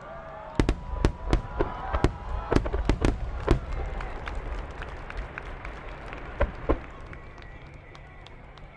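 Fireworks going off: a rapid string of sharp bangs for the first few seconds, then two more bangs later, with faint whistling tones gliding in pitch between them.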